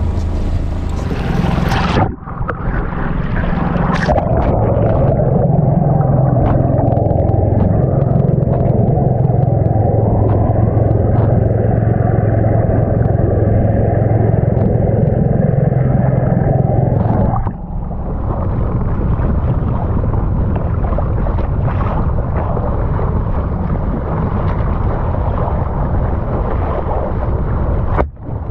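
Wind and rushing water at the surface of the sea, cutting abruptly about two seconds in to a muffled underwater rumble and gurgle from a camera below the surface. About two-thirds of the way through it cuts back to wind and splashing water at the boat's side.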